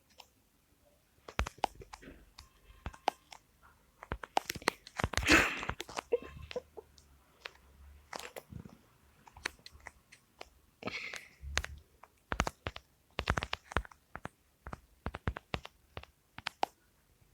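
Irregular crunching and clicking close to the microphone, with a louder, longer rustling crunch about five seconds in.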